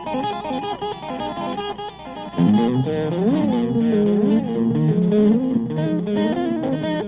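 Electric guitar music with effects. It gets fuller and louder about two and a half seconds in, and the guitar bends notes up and back down a couple of times.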